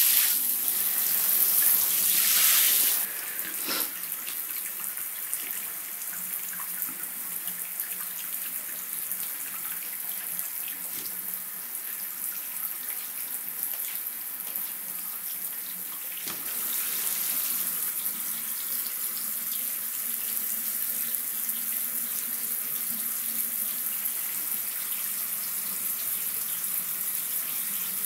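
Water from a hand shower running and splashing into a bathtub, louder for the first three seconds, then a steadier, softer flow that picks up a little about sixteen seconds in.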